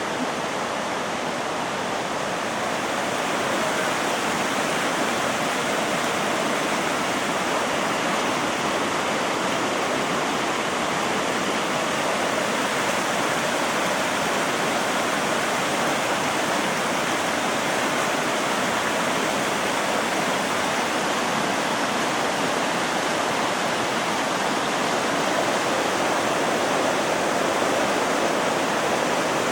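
Floodwater rushing steadily down a swollen creek, a little louder after the first few seconds.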